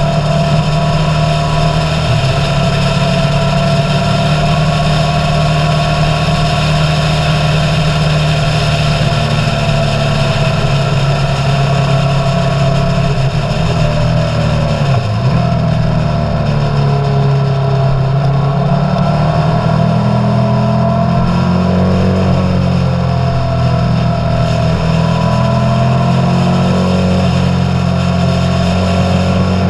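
Motorcycle engine running steadily under way, its pitch rising and falling several times in the second half.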